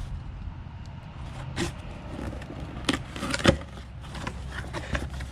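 Cardboard box being opened and its contents handled: scattered scrapes and light knocks, with one sharper knock about three and a half seconds in.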